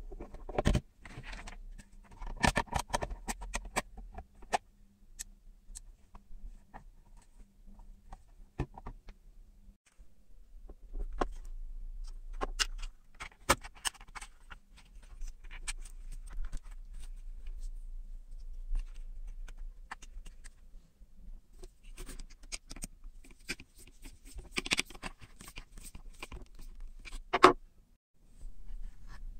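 Irregular clicks, taps and scrapes of hands handling a clear plastic amplifier enclosure while fitting potentiometer knobs and audio jacks, with one sharp click near the end standing out as the loudest.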